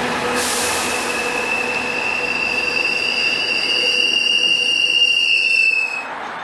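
MBTA commuter rail train of bi-level coaches rolling slowly past, with a high-pitched metallic squeal over the rumble of its wheels. The squeal rises slightly in pitch and stops abruptly about six seconds in.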